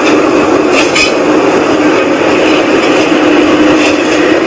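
A loud, steady whooshing drone with a rumble and a low hum running through it, coming from the sky and of unexplained origin. The woman recording it calls it something between a whoosh and a rumble, and insists it is not aircraft noise.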